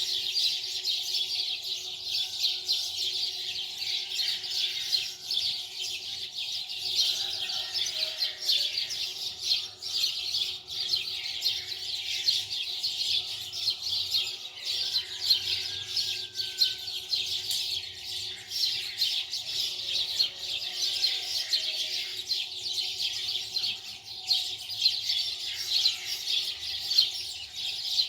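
Dense, continuous chirping of many small birds, a steady chorus of rapid high chirps without pause.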